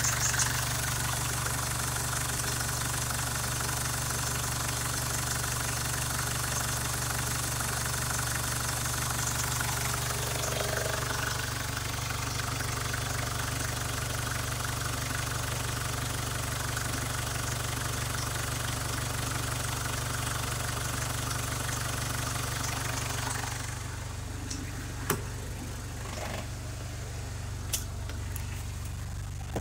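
A 2010 Mazda BT-50's 3.0-litre turbo-diesel four-cylinder idles steadily. About six seconds before the end the sound turns quieter and duller, heard from inside the cab, and two sharp clicks come a couple of seconds apart.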